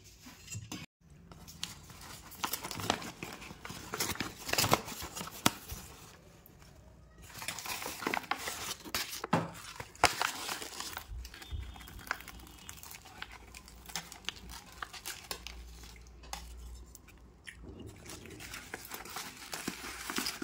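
Paper food wrapping crinkling and rustling in irregular spells, with occasional clinks of steel bowls and a spoon.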